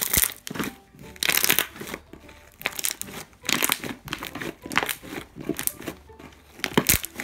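Borax-activated glue slime made with shaving gel being squeezed, folded and stretched by hand on a table, giving irregular wet crackling squishes about once or twice a second.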